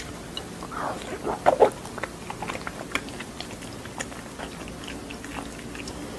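Close-miked eating: a sharp bite at the start, a few loud wet squelching mouth sounds about a second in, then steady chewing with small scattered clicks.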